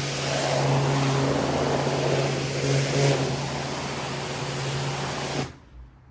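Pressure washer spraying: a steady hiss from the water jet over the low hum of the machine. The spray cuts off suddenly near the end, leaving only a faint low hum.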